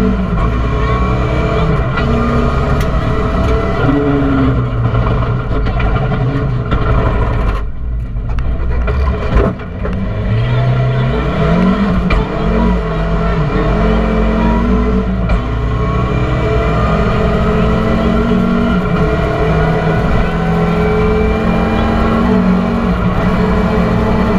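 Rally car engine heard from inside the cockpit at speed, its pitch climbing and falling again and again through gear changes. About eight seconds in the engine note drops away briefly, a sharp knock follows, and it climbs again.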